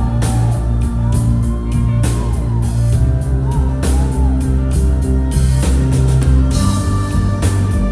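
Live electronic rock band playing, loud and unbroken: sustained low bass notes that shift in pitch under a steady drum beat, with a gliding melodic line above.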